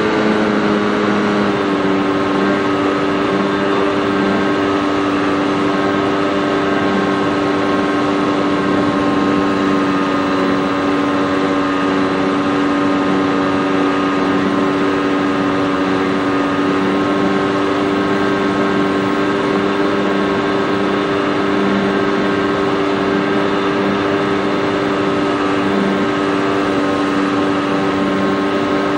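The motor of a Senorita RC model airplane running steadily in flight, heard from the onboard FPV camera. Its pitch drops slightly about a second and a half in and then holds even.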